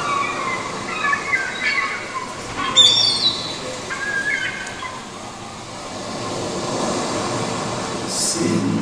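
Audience in a school auditorium chattering, with high-pitched shouts and whoops in the first few seconds that settle into a low murmur. Music starts near the end.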